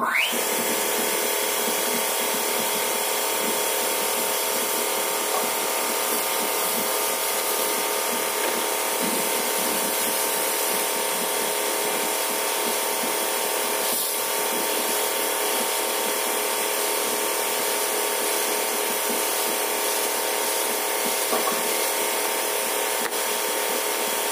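A motor-driven machine starts suddenly with a quick rising whine, then runs steadily with a constant hum and hiss.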